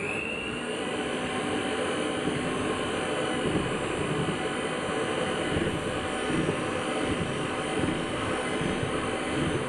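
Electric hand mixer running steadily, its beaters whirring as they beat glaze in a bowl.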